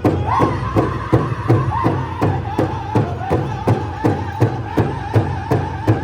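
Powwow drum and singers: a big drum struck in a steady, even beat, a little under three strokes a second. High-pitched singing comes in just after the start and carries on over it.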